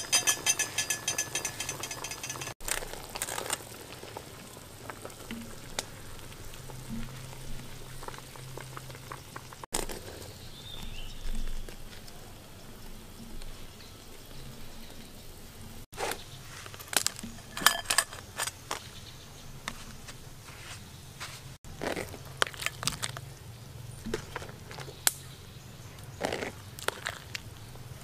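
Scattered clicks, taps and light knocks of handling over a steady low hum, broken by four brief dropouts.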